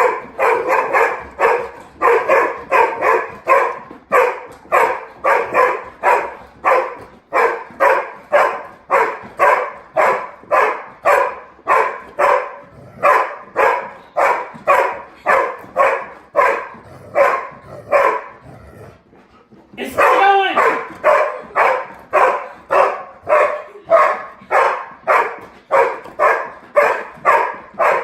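A dog barking over and over at a spinning ceiling fan, about two barks a second. Near two-thirds of the way through the barking breaks off briefly, then starts again with a wavering, gliding yelp before the steady barking goes on.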